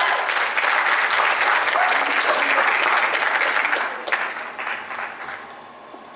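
Audience applauding, the clapping thinning out and dying away about four to five seconds in.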